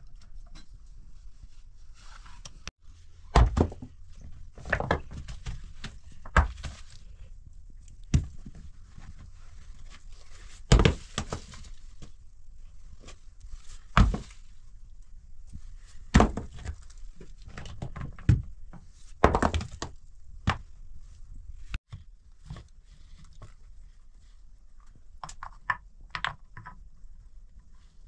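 Heavy stones being set and knocked into place by hand, rock thudding on rock about ten times at irregular intervals as a dry-stone wall is stacked.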